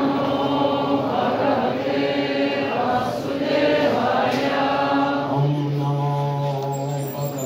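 A group of voices chanting a Sanskrit verse together, call-and-response style, with a single low male voice taking the lead about five seconds in.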